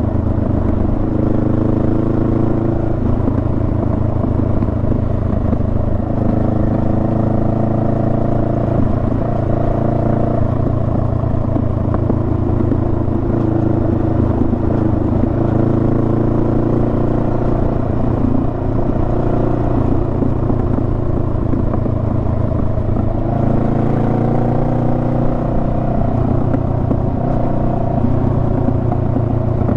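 Honda Rebel 500's parallel-twin engine running under way, a steady low rumble with its pitch rising and easing off several times as the revs change.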